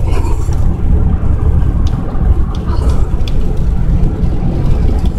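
Road and engine noise heard inside a vehicle's cabin at highway speed: a loud, steady low rumble.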